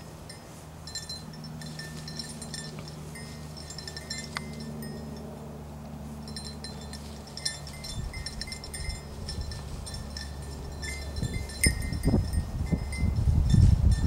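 A bird-dog bell on a German shorthaired pointer's collar jingles in irregular clusters as the dog runs and searches through tall grass, going quiet for a couple of seconds around the middle. A louder rustling noise builds near the end.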